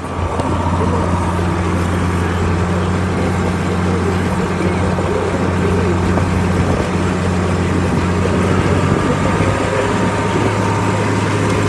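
Farm tractor engine running steadily with a constant low drone.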